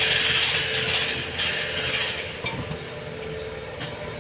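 Mechanical rattling that starts suddenly and lasts about two seconds, then a few separate sharp clicks.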